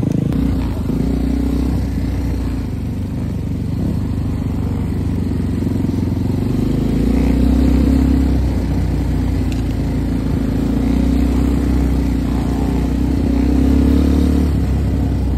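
Dirt-bike engines running steadily, the sound swelling a little around the middle and again near the end as the bikes work along an off-road track.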